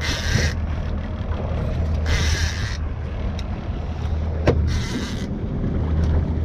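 Boat engine running with a steady low hum, with short rushes of hiss about every two to two and a half seconds and one sharp knock about four and a half seconds in.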